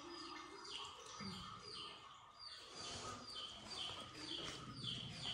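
A bird chirping over and over, faint, each a short falling note, about two a second.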